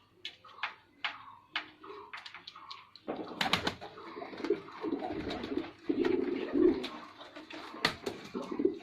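Male domestic pigeon cooing. The low, throaty coos start about three seconds in and keep stopping and starting, with a few sharp clicks among them. Before that there are only faint short calls and clicks.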